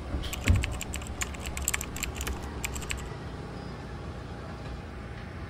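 Rapid, irregular light clicking for about three seconds, with one heavier thump about half a second in, over a low steady rumble.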